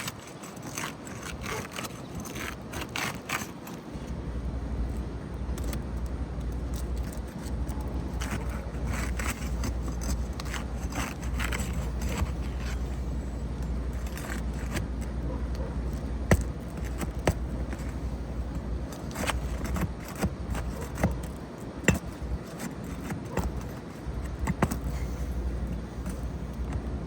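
Asphalt roof shingles being pried up and handled to test whether they can be repaired: irregular scraping, crackling and clicking of shingle and tools, with a few sharper snaps. A low steady rumble joins about four seconds in.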